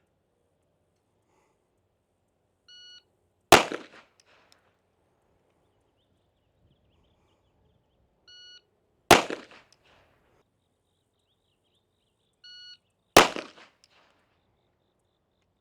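Electronic shot timer beeps, then a single gunshot follows less than a second later; this happens three times, each shot loud and sharp with a short echo.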